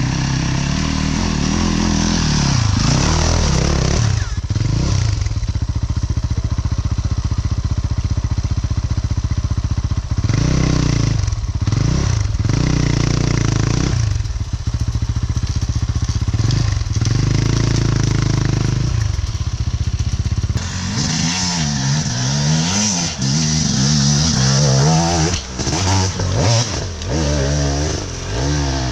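Enduro dirt bike engine being ridden hard off-road, its revs rising and falling again and again as the throttle is worked. Its sound changes about twenty seconds in, with quicker swings in pitch.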